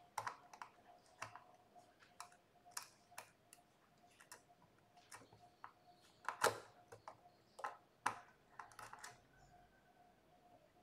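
Faint, irregular clicks and taps of wire connectors and plastic parts being handled and pushed into a terminal block on a control board, the loudest about six and a half seconds in.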